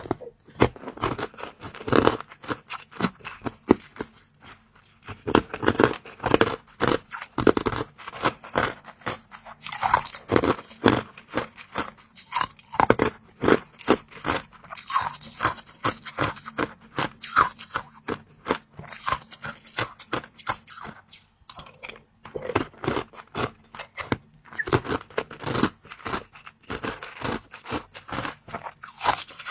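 Close-up crunching and chewing of hard, crunchy food, in dense irregular clusters of sharp crisp snaps with brief pauses between bites.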